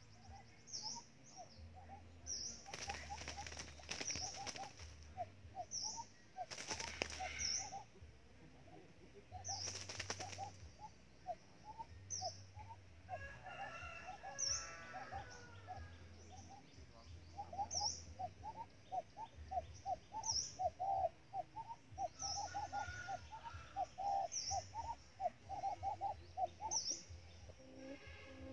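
Birds calling: short high chirps about once a second over long runs of quick, lower notes. Three brief flurries of wing-flapping come in the first half.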